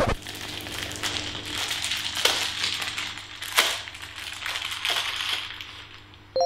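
Crinkling and crackling of a collectible card packet being handled in the hands, with sharper crackles a little over two seconds in and again at about three and a half seconds. A faint steady low hum runs underneath.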